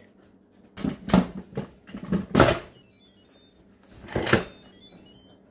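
Instant Pot electric pressure cooker's lid being set on and twisted shut: a few short knocks and clunks of the lid against the pot, the loudest about two and a half seconds in. After that comes a faint electronic chime of stepping beeps from the cooker.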